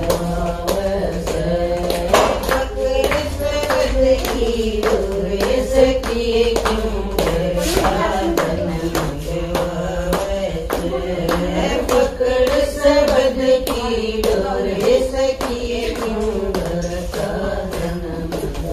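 A group of women singing a Haryanvi devotional bhajan together, keeping time with steady rhythmic hand-clapping.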